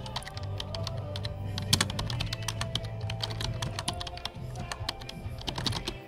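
Background music with a steady low bass line, under a fast, irregular run of sharp clicks like typing on a computer keyboard.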